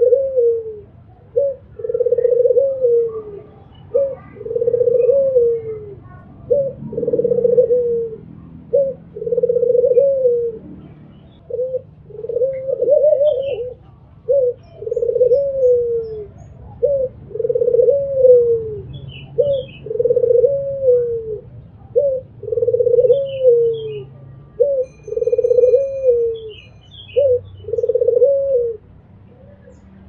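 Albino Barbary dove (puter) cooing over and over: a short note, then a longer falling coo, the pair repeating about every two seconds. Faint chirps of small birds in the background in the second half.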